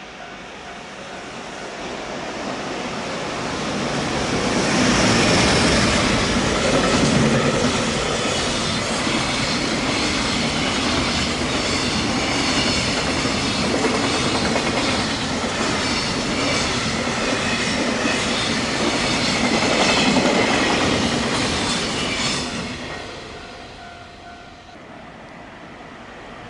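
Long freight train hauled by an EF510 electric locomotive passing close by, its wheels clacking rapidly over the rail joints. The sound builds over the first few seconds, stays loud for most of the pass, and falls away sharply about 22 seconds in as the last wagons go by.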